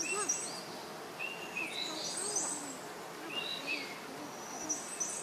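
Birds calling over and over, a low hooting note together with high chirps and whistles every second or two. Under them is a steady hiss of chopped green chilies and garlic sizzling in hot oil in a wok.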